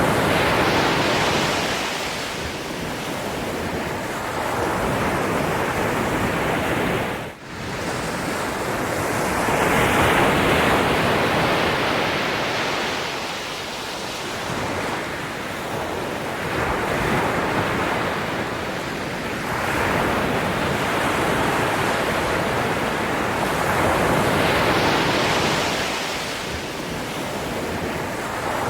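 Ocean waves surging and washing in, swelling and fading every few seconds, with a brief drop in level about seven seconds in.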